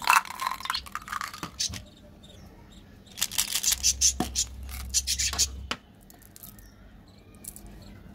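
Sugar-coated chocolate buttons clattering into a small plastic jar, then rattling in a candy tube as they are shaken out into a hand. The second bout of rattling is longer and louder.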